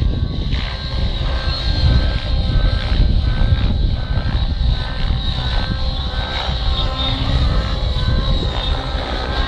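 Nitro-fuelled radio-controlled 3D aerobatic helicopter in flight: its glow engine and main rotor run continuously, the engine tones wavering up and down in pitch as it manoeuvres.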